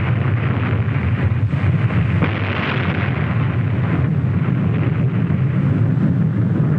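Sustained roar and rumble of an atomic bomb explosion on an old 1950s film soundtrack, a steady heavy noise that keeps up after a sudden onset.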